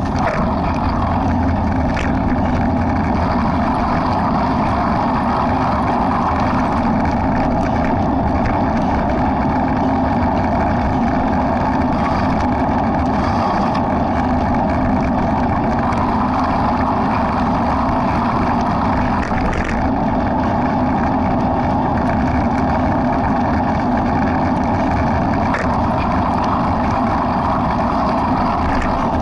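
A motor vehicle's engine runs steadily at low speed, with road and wind noise, unbroken throughout.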